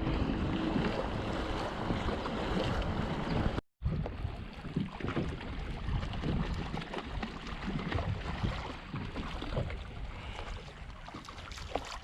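Wind buffeting the microphone on an open boat on the water, a steady rough rumble with no voices. It drops out completely for a moment about four seconds in, then carries on.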